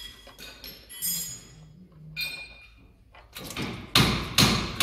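Oil drain plug on a ZAZ-968M's engine sump being unscrewed by hand with light metallic clinks; near the end the plug comes free and the warmed-up old engine oil gushes into a waste-oil collector, splashing and glugging loudly in a regular pulse.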